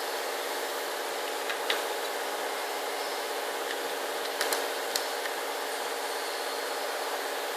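Steady machine hum, with a few light metallic clicks as the tool grinder's wheel-and-motor head is swivelled by hand to set the wheel angle.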